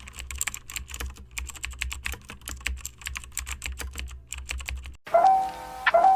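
Rapid, irregular clicking of typing on a keyboard, over a low steady hum. About five seconds in the clicking stops and background music with a melody comes in.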